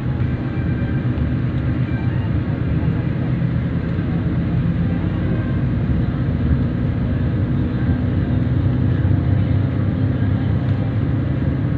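Steady low drone of engine and road noise heard from inside a moving vehicle at cruising speed, with a faint even engine hum.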